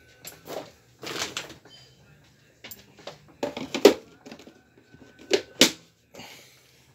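Hard plastic clicks and knocks as a Nespresso Zenius coffee machine's clear water tank is handled and fitted onto the machine, with a couple of brief scrapes; the loudest knocks come about four and five and a half seconds in.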